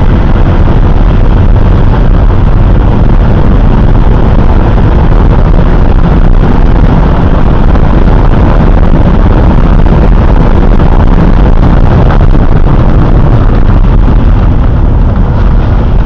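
Honda CRX's D16 four-cylinder engine running hard as the car drives, a steady, very loud and overloaded din mixed with wind on the microphone, in the engine's final moments before it fails.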